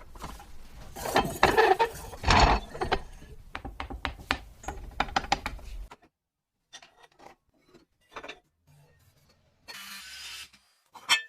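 Metal scraping, rubbing and clicking from work on a rusty hand-crank fruit grinder, dense for about six seconds, then cutting off to scattered clicks, a short hiss, and one sharp click near the end.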